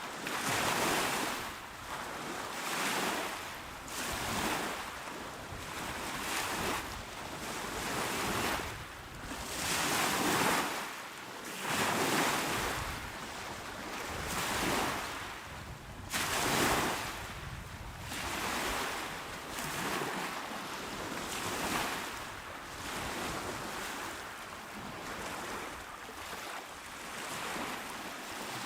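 Calm waves breaking and washing onto a shore, a fresh rush of surf about every two seconds, strongest near the middle.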